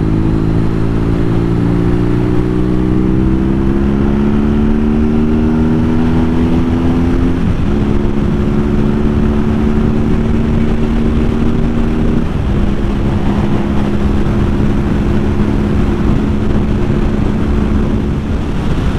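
BMW R nineT's boxer-twin engine under way: its pitch rises steadily for about seven seconds as the bike accelerates, drops with a gear change, then holds steady at cruising speed, easing slightly about twelve seconds in. A constant rush of wind and road noise runs underneath.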